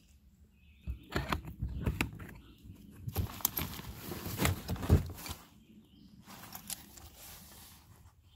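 Rustling with a rapid string of sharp knocks and clatters, densest from about one to five seconds in, then fainter scattered rustles.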